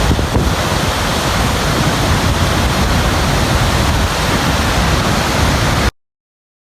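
Dettifoss waterfall, a loud steady rush of falling water that cuts off abruptly near the end.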